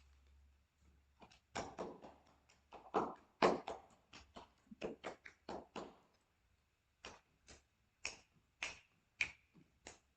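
A series of about fourteen sharp taps and clicks at an uneven pace, loudest in the middle, the last few with a brief ringing tone.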